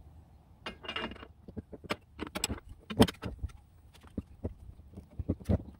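Wrench tightening a threaded air fitting into the high-pressure port of a twin air compressor: a string of irregular sharp clicks and clinks, the loudest about three seconds in.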